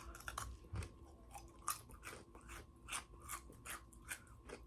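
Close-miked chewing of crispy fried chicken: crisp, irregular crunches about two or three a second as the breading is chewed.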